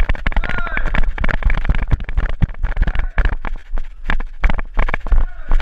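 Airsoft gunfire: rapid, irregular sharp cracks and clatter, several a second, mixed with heavy low knocks.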